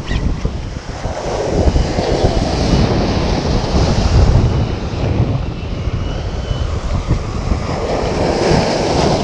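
Waves surging and breaking against a rocky shoreline, with wind buffeting the microphone.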